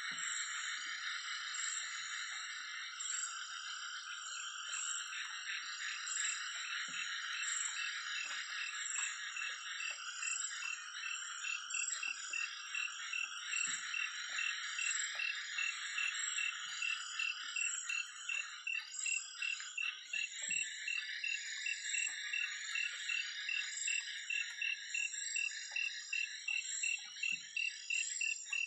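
Night chorus of frogs and insects, a dense steady trilling. From about halfway through, a rapid, evenly pulsed call of one pitch stands out at roughly four pulses a second.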